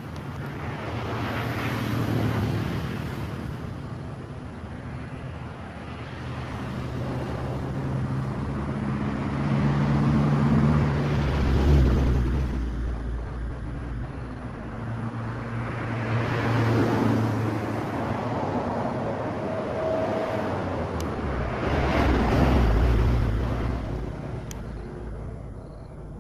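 Road traffic: several vehicles pass one after another, each engine and its tyre noise swelling and fading over a few seconds.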